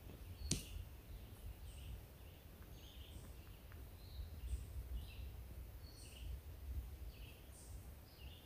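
Faint woodland ambience: birds calling with short chirps over and over, over a low steady rumble. A single sharp click about half a second in.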